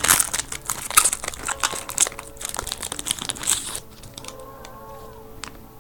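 A trading card pack's wrapper being torn open and crinkled by hand, a dense run of crackles that stops about four seconds in.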